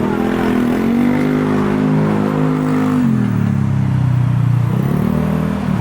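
A motor vehicle engine running, its pitch rising about half a second in, dropping about three seconds in and climbing again near the end.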